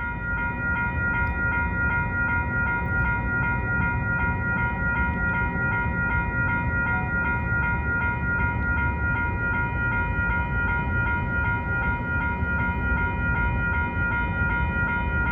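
Level-crossing warning bell ringing steadily, about three strokes a second, over the low rumble of a CPKC freight train rolling past with autorack cars.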